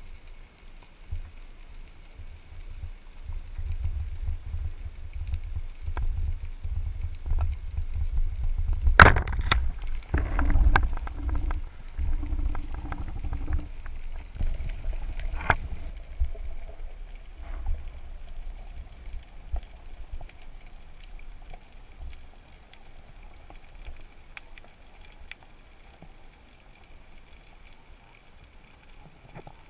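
Underwater sound through a speargun-mounted camera housing: a low rumble of water moving past as the diver swims, building and then fading. Sharp knocks about nine seconds in and again about fifteen seconds in.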